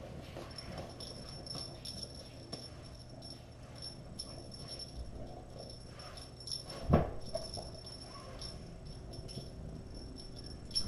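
Small jingle bell on a cat toy tinkling on and off, a thin high ringing with little ticks as it is shaken, and a soft thump about seven seconds in.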